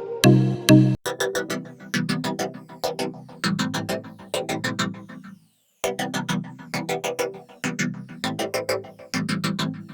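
Electronic background music: a quick run of evenly spaced synthesizer or keyboard notes over a bass line, dropping out for a moment about halfway through.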